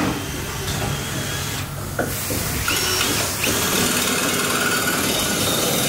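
A power tool whirring over a steady low hum, getting louder about three and a half seconds in.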